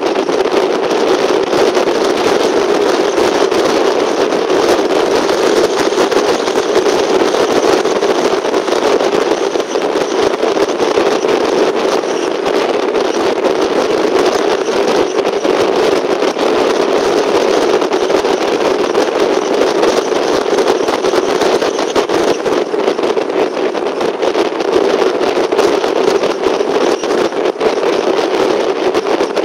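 Steady road and engine noise from inside a moving car, tyres and engine running at cruising speed.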